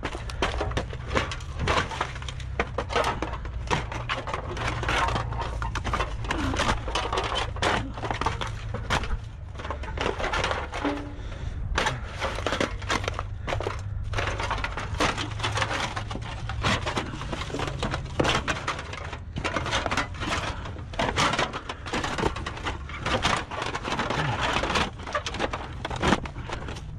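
Thin aluminum sheet scrap being crumpled and bent by hand: continuous irregular crinkling and crunching with many sharp cracks.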